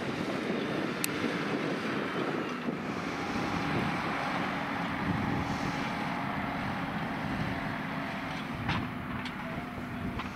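Tractor engine running steadily as the tractor drives across a grass field, heard against heavy wind noise on the microphone, with a few sharp clicks.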